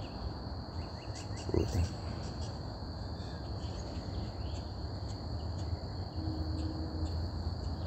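Faint, steady, high-pitched chirring of insects, with a low hum underneath.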